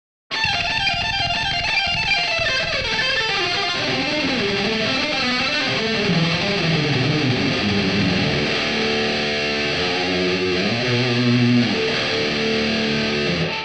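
Electric guitar lead played through the Audio Assault Bulldog amp sim's lead channel, with delay, reverb and chorus on. Quick runs of notes at first give way to longer held notes and a bend near the end, where the playing stops.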